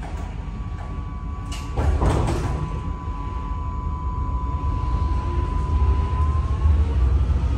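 Alstom Citadis X05 tram doors sliding shut with clunks about two seconds in. A steady electrical whine and a low rumble follow, and the whine begins to rise in pitch near the end as the tram starts to pull away from the stop.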